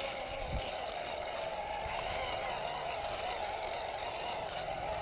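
Radio-controlled scale Land Rover running with a steady whirr, its battery running flat.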